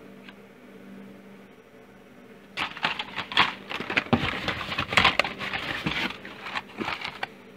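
Blister-packed toy cars on cardboard backing clattering and crinkling as they are handled in a cardboard box. A dense run of irregular clicks and rustles starts about two and a half seconds in and stops shortly before the end.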